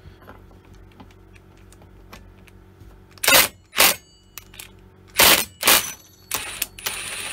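Milwaukee Fuel cordless impact tool hammering in short bursts on the clutch of a Stihl MS170 chainsaw: four quick bursts about three seconds in, then a longer run near the end. The clutch is being undone, and it unscrews clockwise.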